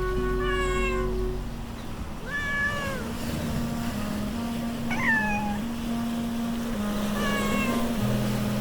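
A cat meowing four times, about two seconds apart, over background music with held low notes.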